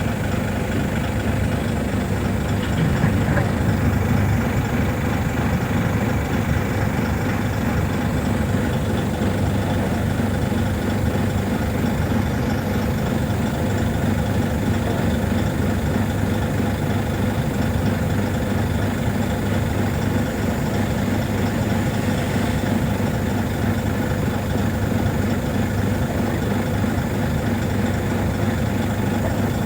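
Heavy diesel engines running steadily at a dig site: a large hydraulic excavator loading a dump truck. The engine note runs on evenly and swells briefly about three seconds in.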